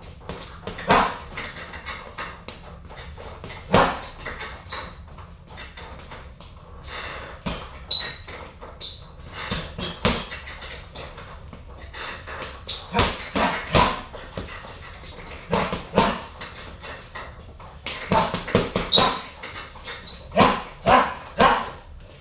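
Gloved punches thudding into a hanging heavy bag in irregular flurries of a few blows with short pauses between. Brief high squeaks sound between some of the punches.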